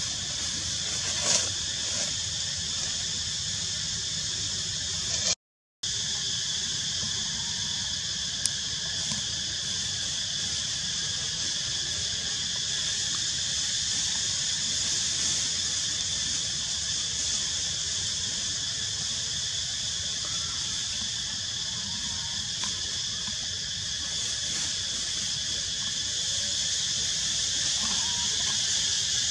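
Steady, high-pitched drone of an insect chorus in several constant bands, with one brief squeal about a second in.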